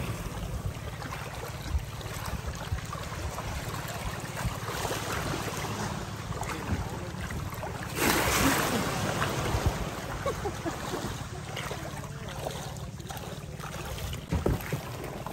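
Boat engine running steadily with a fast, even pulse, under the rush of water and wind on the microphone; the rush swells louder about eight seconds in.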